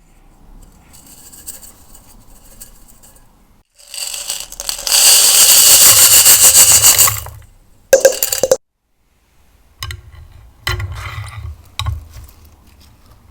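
Scraping and crackling as makeup eyeshadow is worked into slime by hand. A soft scrape at first, then a loud, dense crackling scrape about four seconds in that lasts about three seconds, a short burst a second later, and scattered shorter scrapes and crackles near the end.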